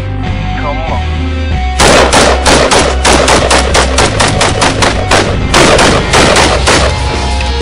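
Galil rifle firing a long string of rapid shots, several a second, starting about two seconds in with a brief break, then stopping near the end. Rock background music plays underneath.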